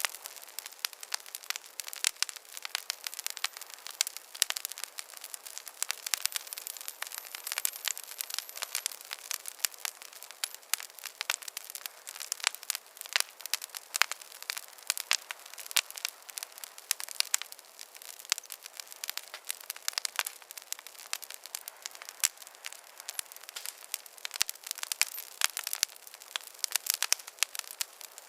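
Campfire crackling: a dense, irregular run of sharp pops and snaps over a steady hiss.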